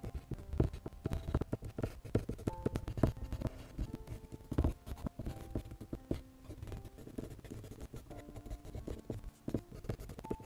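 Prismacolor colored pencil scratching across drawing paper in many short, irregular shading strokes, over quiet background music.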